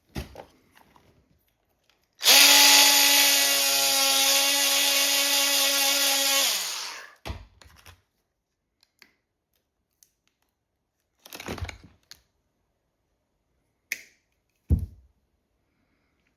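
Small handheld power tool's electric motor running at a steady high speed for about four and a half seconds, then spinning down as it is released. A few light knocks and handling sounds follow.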